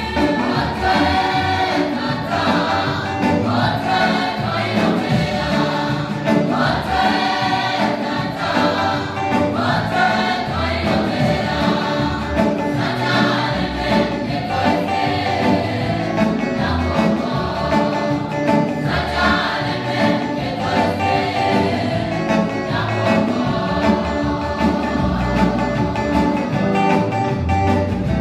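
Church choir singing a gospel song, many voices together, with a steady low beat underneath.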